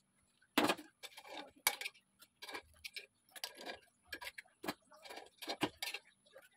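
Metal fork and spoon clicking and scraping against a metal pukis mould as cooked pukis cakes are pried out of their cells: a string of irregular clicks and short scrapes, the sharpest about half a second in and again near 1.7 s.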